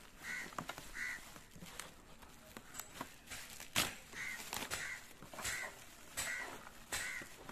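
Bubble wrap rustling and crinkling as it is handled and pulled off a packed plaque, with scattered sharp crackles, the loudest a little before 4 s. A bird gives about seven short calls in the background.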